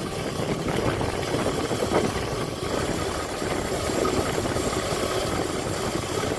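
Razor MX500 electric dirt bike riding along a street: the steady noise of its electric motor, chain drive and tyres on asphalt, with wind on the microphone.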